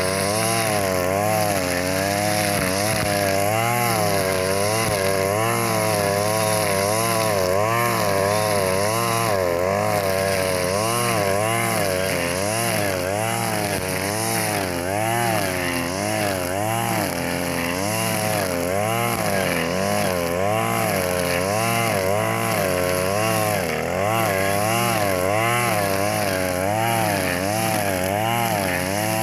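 Husqvarna 542RBS 42cc two-stroke backpack brush cutter running continuously as its 2.4 mm square nylon line cuts cogon (lalang) grass. The engine pitch wavers up and down about once a second.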